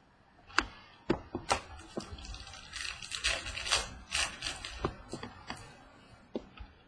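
Trading cards being handled: a run of sharp clicks and taps with rustling between them, busiest around the middle.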